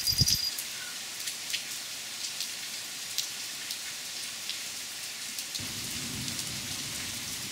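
Rain falling into a pool of water: a steady hiss dotted with the ticks and plinks of single drops splashing. A thump comes right at the start, and about three quarters of the way through a low rumble sets in under the rain.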